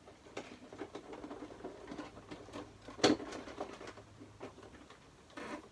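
Light rustling and small taps as a tape measure is handled against a padded dress form, with one louder knock about three seconds in.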